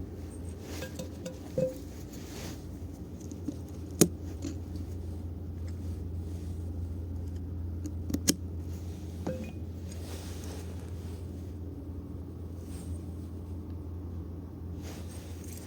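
Scattered sharp metallic clicks and clinks of small hand tools against piston and connecting-rod parts as a GX200-clone engine's piston is fitted to its rod. The loudest click comes about four seconds in and a quick pair of clicks about eight seconds in, over a steady low hum.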